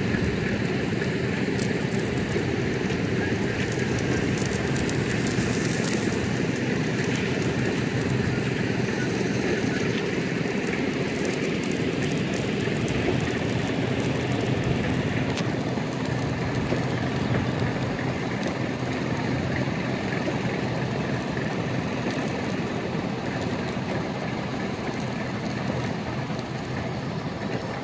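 A sealcoat spray rig's engine-driven pump running steadily, with the hiss of asphalt sealer spraying from a hand wand onto the pavement.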